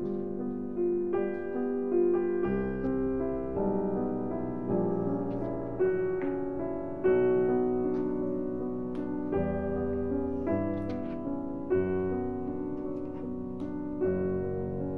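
Background piano music: a slow run of single notes and chords, each struck and left to ring.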